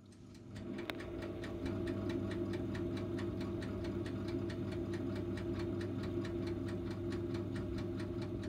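Electric oven running with a steady hum, and a mechanical timer ticking fast and evenly. The sound fades in over the first second or so.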